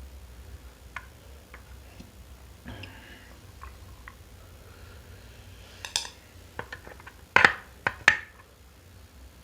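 Cutlery clicking and clinking against a plate while eating noodles: scattered light clicks, then a few louder knocks in the second half.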